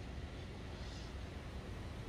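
Steady seaside ambience: a low rumble under an even hiss, with a brief soft rush of higher hiss about a second in.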